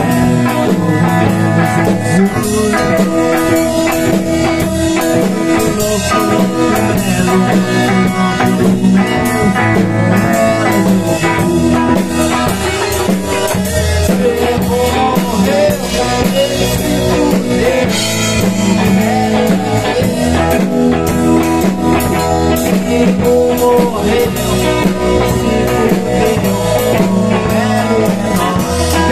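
A rock band playing live in a small rehearsal room, an instrumental passage led by a drum kit with cymbals and an electric guitar through an amplifier.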